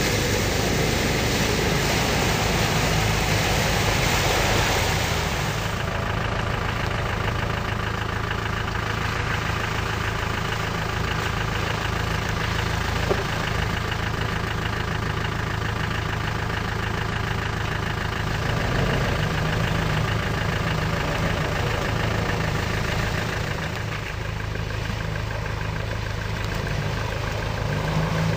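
Off-road 4x4's engine running steadily at low revs as it crawls through a boggy, rutted trail. For the first six seconds or so a hiss of mud and water being sprayed by the tyres runs over it, then stops.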